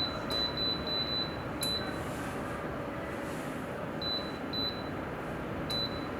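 Electric space heater's control panel beeping as buttons or remote commands are received: short, high single-pitch beeps, six in quick succession in the first two seconds, then three more spread out, over a steady hiss.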